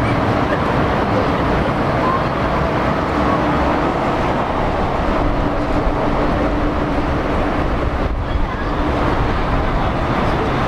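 Jet engine noise from a departing Boeing 777-300 airliner: a loud, steady rushing rumble with a faint hum over it.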